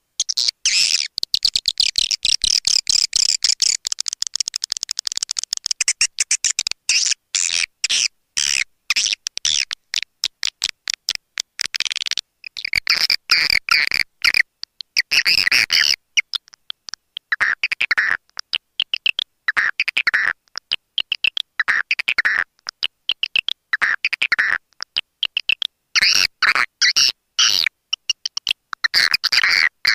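Swiftlet call recording: swiftlets twittering in quick chirping phrases over dense rapid clicking, the lure call played to draw swiftlets into a nesting house.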